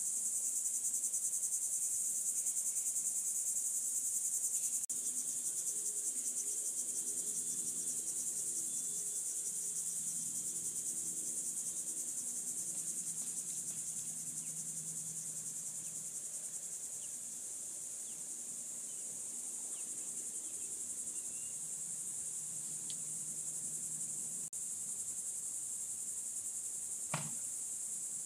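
Insect chorus: a continuous high-pitched buzzing trill that holds steady throughout, with a single sharp click near the end.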